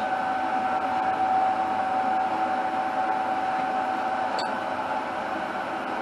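A steady machine hum with a constant whine over fan-like noise, and a single light click about four and a half seconds in.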